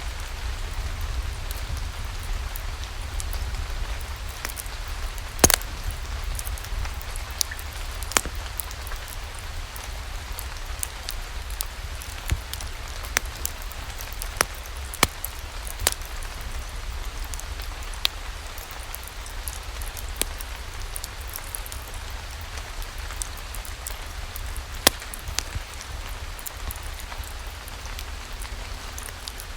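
Steady rain with a low rumble beneath it, and sharp single pops and clicks scattered irregularly through it, the loudest about five seconds in.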